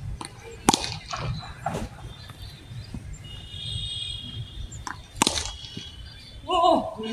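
Two sharp knocks of a cricket bat striking a tennis ball, about four and a half seconds apart. A short shout comes near the end.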